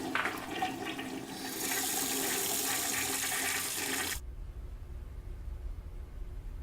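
Water rushing: a few clicks, then a loud hiss of water from about a second and a half in that cuts off abruptly about four seconds in, leaving a low hum.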